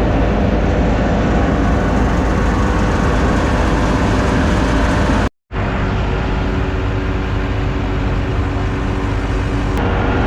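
Maize grain dryer running, a loud, steady machine drone with a steady hum in it. The sound drops out completely for a moment about halfway through and then carries on as before.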